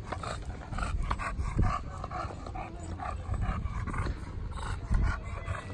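English bulldog breathing hard with rapid short, noisy pants, about four a second, with some handling rumble from the phone held close to him.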